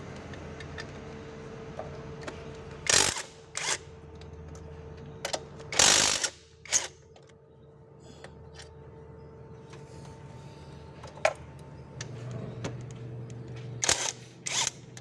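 Ratchet wrench with a socket on a long extension, loosening the bolts of a diesel engine's EGR valve housing: a string of sharp metallic clicks and clanks, the longest and loudest about six seconds in.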